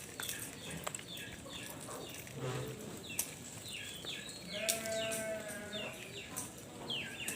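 Outdoor small birds chirping repeatedly in short falling notes, with one drawn-out, bleat-like animal call lasting about a second, around five seconds in.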